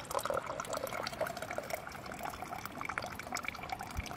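Water trickling and dripping through a cloth bandana into a plastic water bottle: iodine-treated lake water being strained of floating debris. It is a steady pour speckled with small drips.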